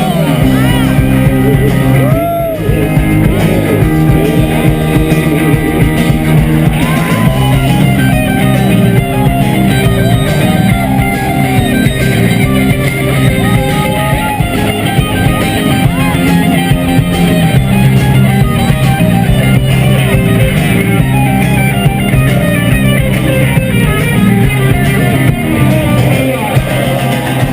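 Rock music with electric guitar, drum kit and singing, loud and continuous.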